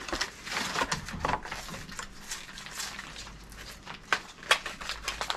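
MRE ration pouches and packaging being handled: irregular crinkling and crackling of the packets, with a sharper crackle about four and a half seconds in.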